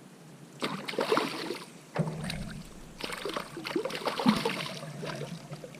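Irregular splashing and knocking around a canoe as a hooked fish is brought in alongside. There are sharp knocks about two seconds in and again near four seconds.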